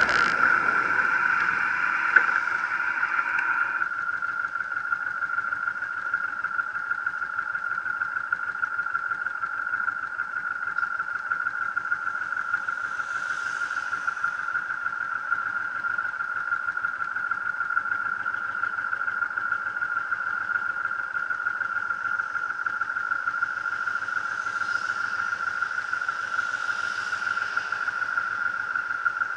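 Honda VTX 1800's big V-twin engine slowing to a stop in the first few seconds, then idling steadily, with a steady high-pitched whine over it throughout.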